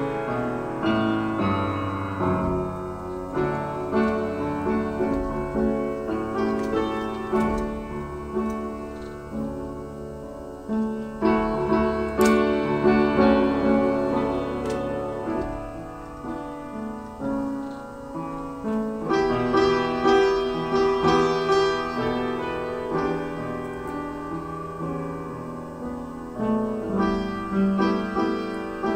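Piano music: chords and melody notes struck and left to ring, growing louder about a third of the way in and again past the middle.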